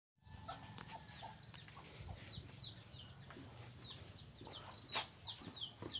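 Birds chirping: many short, high, falling chirps in quick succession, over a steady high-pitched tone.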